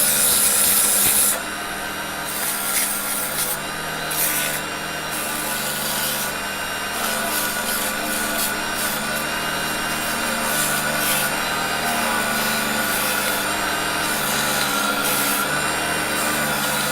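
Raitool 350 W mini wood lathe running with a steady motor hum and whine, while sandpaper is held against the spinning wooden workpiece. The sanding gives a hissing rasp that swells and fades, loudest in the first second.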